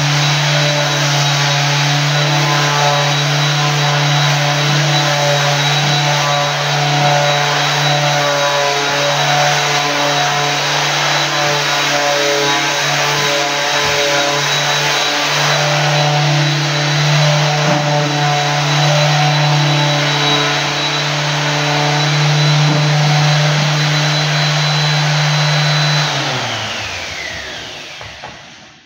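Electric floor-sanding machine running steadily with a low motor hum and a high whine. About 26 seconds in it is switched off and its motor winds down, falling in pitch until it stops.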